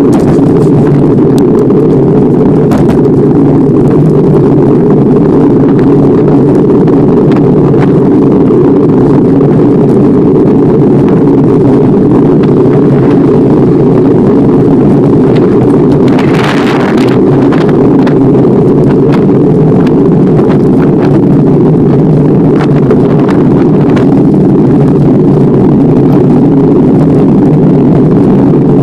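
Steady loud rumble of riding a bicycle on a paved road, picked up by a handlebar-mounted camera as wind on the microphone and road noise. A brief louder hiss comes about two-thirds of the way through.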